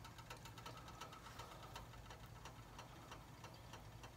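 Near silence: a faint steady low hum with light, irregular ticking.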